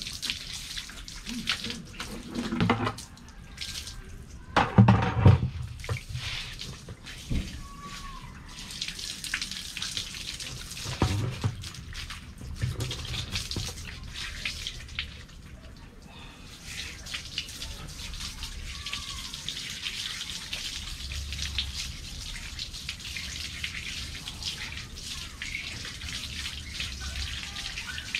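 Water running from a garden hose and tap, splashing into a plastic bucket and over wet concrete, with a few louder splashes and knocks in the first half.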